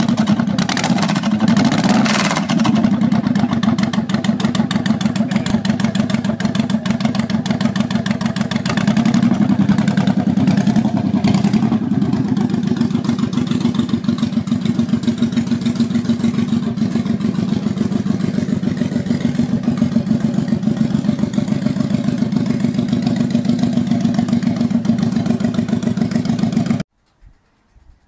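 Honda VTX 1800's large V-twin idling with a rapid, even exhaust beat. It is blipped up briefly about two seconds in and again around ten seconds in, and it cuts off near the end.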